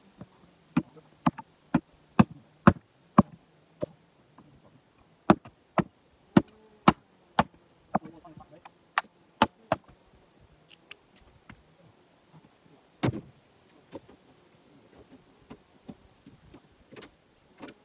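Axe chopping jarrah firewood: sharp wooden strikes about two a second in several runs, then a single heavier, duller blow about thirteen seconds in.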